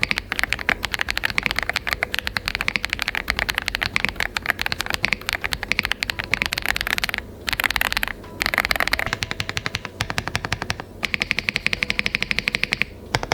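Fast typing on a Weikav WK75 gasket-mount mechanical keyboard fitted with tactile Moon White switches: a rapid, continuous stream of keystroke clacks, broken by a few short pauses.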